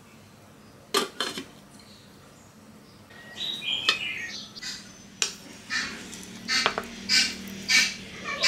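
Cookware handling: a sharp knock about a second in, a glass pan lid clinking and ringing as it is set on a nonstick frying pan, then a run of short knocks and scrapes about twice a second as the pan is tipped over a plastic cutting board.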